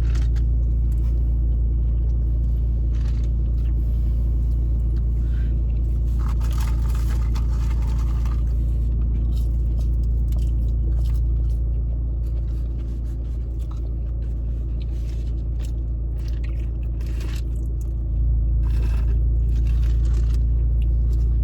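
Steady low rumble of a car's interior with the engine running. It eases a little for a few seconds after about twelve seconds in. Small clicks and a brief rustle, like food packaging being handled, sound over it about six to eight seconds in.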